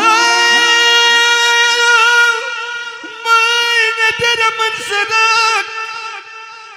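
Live amplified singing in Romanian lăutărească style: a high male voice holding long, wavering, ornamented notes through a microphone, in two long phrases with a short break about halfway.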